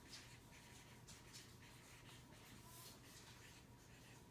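Faint scratchy strokes of a felt-tip marker writing on chart paper, over near silence.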